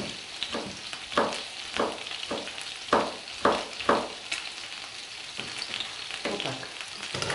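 A kitchen knife slices a bell pepper into rings on a plastic cutting board, about eight sharp strokes in the first four seconds or so. Meat cutlets sizzle steadily in a frying pan underneath. Near the end the blade pushes the cut pepper and onion together on the board.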